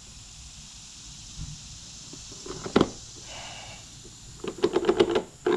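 Plastic motor-oil bottle being handled after pouring into the engine: a sharp knock about halfway through, a brief rustle, then a fast run of plastic clicks and rattles near the end, with one more loud click at the close.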